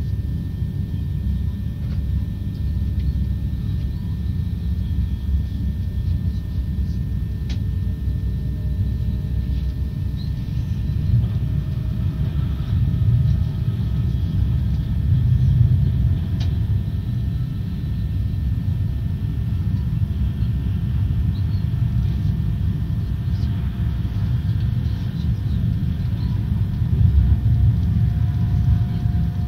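Passenger train running at speed, heard from inside the carriage: a steady low rumble with a faint steady tone above it and a couple of light clicks.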